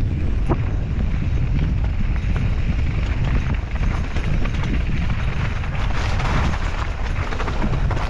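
Santa Cruz mountain bike rolling fast down a loose, rocky gravel trail: tyres crunching over stones and the bike rattling with irregular knocks, over a constant low rumble of wind on the action camera's microphone.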